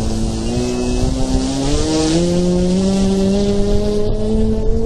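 Brushless electric motor whine from RC aircraft, a strong pitched drone that climbs in several small steps as the throttle comes up, over wind noise.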